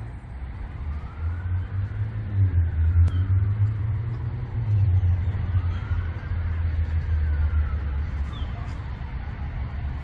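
Low, steady rumble of nearby road traffic, swelling from about a second in as vehicles pass, with faint rising and falling tones above it.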